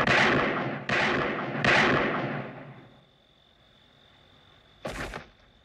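Handgun shots from a film soundtrack: the echo of one shot at the start, then two more shots close together about a second in, each ringing out in a long echoing decay that fades to quiet about three seconds in. A brief noise comes near the end.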